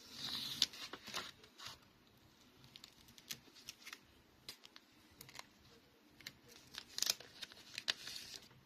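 Packaging being opened by hand: rustling and tearing with sharp clicks and snips, busiest at the start and again around seven seconds in.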